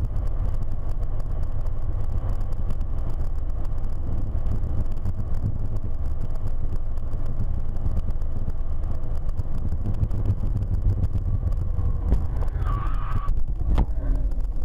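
Steady low road and engine rumble of a car driving at highway speed, heard inside the cabin through a dashcam. Near the end a higher tone sounds for about a second, followed by a single sharp knock.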